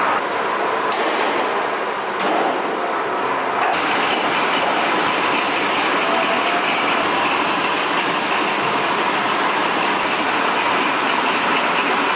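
Steady mechanical noise of a rubber sheeting mill, the geared rollers that press coagulated latex into sheets, running in a tiled processing shed. The noise shifts abruptly a few times in the first four seconds.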